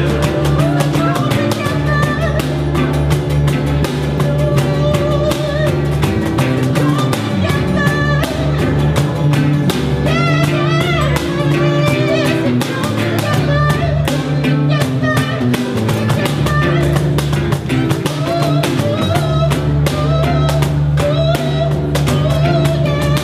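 Live band of strummed guitars over a steady cajón beat, played unamplified except for one small electric guitar.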